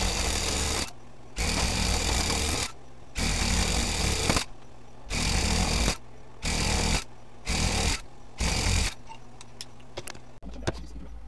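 Handheld electric tufting gun running in short bursts, seven runs of about a second each with brief pauses, punching yarn into the backing cloth. It stops about nine seconds in, and a few light clicks follow.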